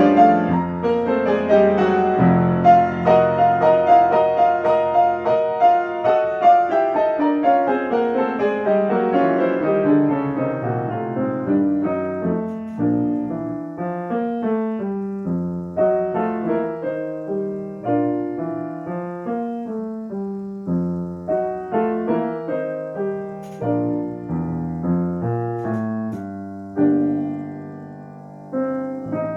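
Solo piano playing classical music. A loud, dense passage descends and fades over the first ten seconds or so, then gives way to lighter, separate notes and chords.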